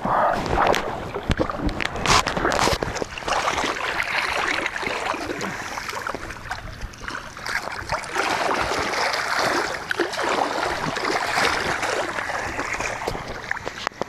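Shallow lake water splashing and sloshing close to the microphone, with scattered knocks and rubbing from the camera being handled.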